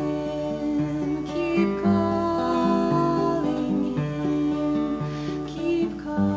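Acoustic guitar playing slow chords, changing about once a second.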